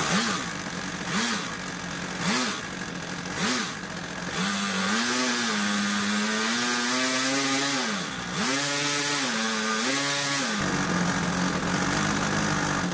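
Single-cylinder gas engine of a model airplane running on a bench with the propeller turning, revved in four short blips about a second apart, then held up for a few seconds, then revved twice more. It settles back to idle and cuts off at the very end.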